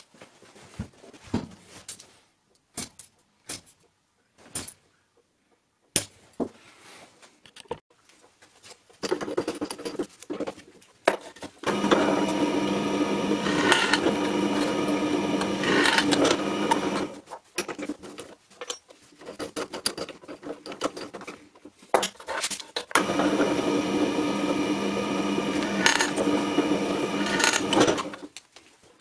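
Small metal hinges clicking and clinking as they are picked up and set down. Then a bench drill press runs for several seconds, drilling a small metal part, stops, and runs again to drill another hole.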